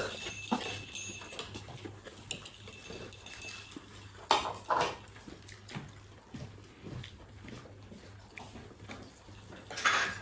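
A dog whining in long high-pitched whines, then giving a few short yelps, about four seconds in and again near the end.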